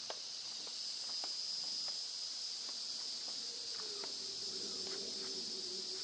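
Steady, high-pitched chorus of insects, with scattered faint clicks and, from about halfway in, a faint low steady hum.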